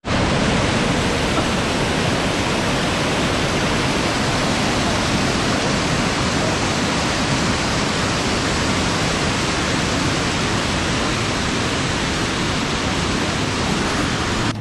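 Small mountain waterfall cascading down rocks into a pool: a loud, steady rush of falling water.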